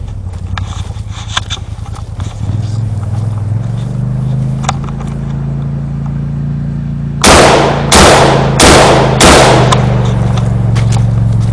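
Four single gunshots about two-thirds of a second apart, past the middle, the loudest sounds here. Under them an engine runs steadily throughout, its pitch rising a little about three and a half seconds in.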